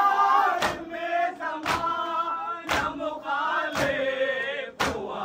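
Mourners beating their chests (matam) in unison, about one sharp slap a second, under a group of voices chanting a noha lament.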